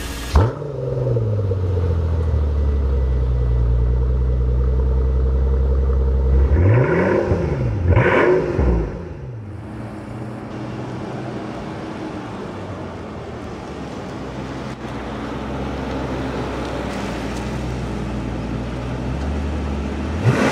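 The 2012 Mercedes-Benz S65 AMG's twin-turbo V12 starts with a short flare and settles into a steady idle. It revs twice in quick succession about seven and eight seconds in, then runs more quietly and steadily, and rises again near the end.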